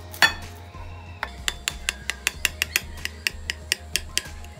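Knife sawing through a crisp toasted sandwich on a plate: one sharp knock just after the start, then a quick run of short, sharp clicks, about five a second, with the strokes of the blade.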